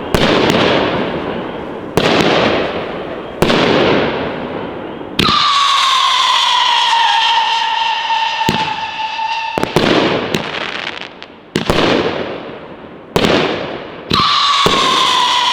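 Class B 18-shot fireworks cake firing. Shot after shot goes off, each a sudden bang followed by a fading hiss of the breaks. Twice a long howling-tail whistle sounds, sliding slightly down in pitch: once about five seconds in for around four seconds, and again near the end.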